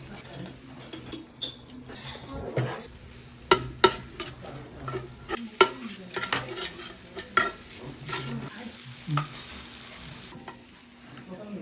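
Metal spatulas scraping and clacking against a hot iron griddle plate as food is stir-fried, over a light sizzle.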